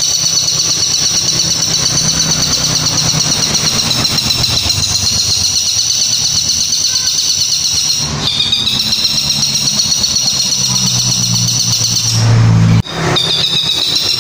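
Caged long-tailed shrike (cendet) giving a long, unbroken, high, rapidly warbling trill over a steady low hum. The trill breaks off briefly about eight seconds in and again near the end, where a short, loud rush of noise cuts in.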